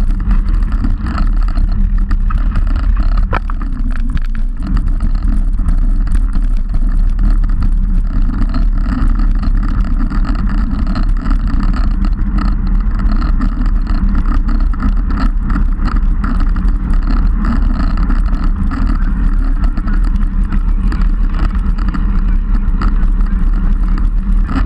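Wind buffeting the microphone of a handlebar-mounted camera on a moving road bike, mixed with tyre and road rumble: a loud, steady low rumble.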